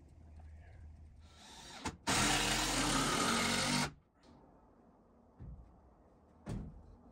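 A power tool runs in one loud burst of about two seconds and stops abruptly, followed by two short knocks.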